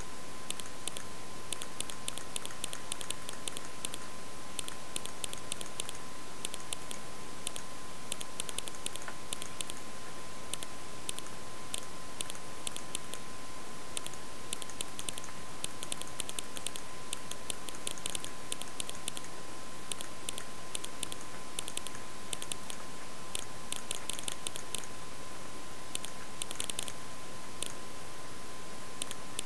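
Rapid, irregular clicking of a computer keyboard and mouse in use, over a steady hiss and a constant thin whine.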